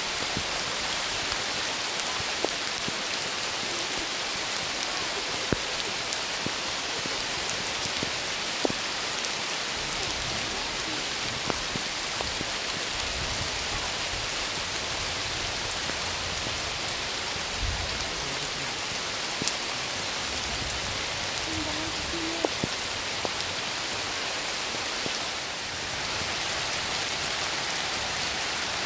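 Heavy rain pouring steadily, with occasional sharp ticks of drops landing close by.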